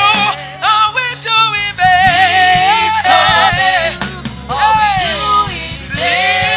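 Gospel worship music: a voice singing long, wavering notes over a steady instrumental accompaniment.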